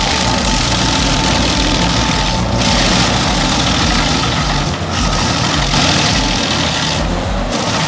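Stump grinder running hard, its engine steady under a loud hissing grind as the cutter wheel chews into a stump; the grinding hiss drops away briefly three times, about two and a half, five and seven seconds in.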